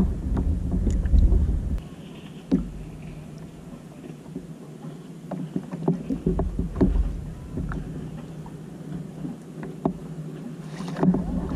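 Wind buffeting the microphone for about the first two seconds, then cutting out, followed by scattered light knocks and clicks of fishing gear being handled on a plastic sit-on-top kayak.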